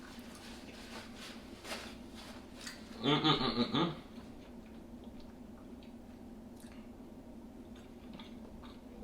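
Close-up eating sounds: chewing and small wet clicks from the mouth. About three seconds in, a short pitched vocal sound is heard, lasting under a second.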